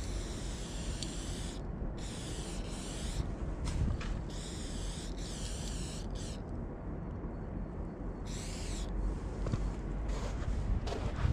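Aerosol spray paint can hissing in repeated bursts of about one to two seconds, with short gaps, as paint is sprayed onto a wall. A steady low rumble runs underneath.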